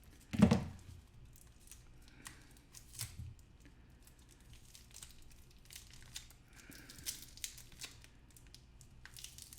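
Wrapping on a rolled coin package being torn open and crinkled by hand. A loud knock comes about half a second in, followed by light intermittent rustles and small clicks.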